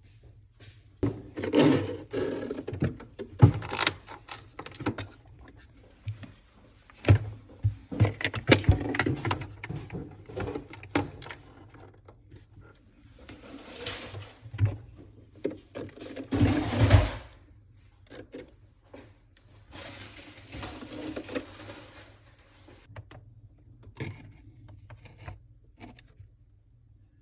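Hands and tools working on refrigerator parts: repeated scraping and rustling with scattered knocks and clicks, thinning out near the end.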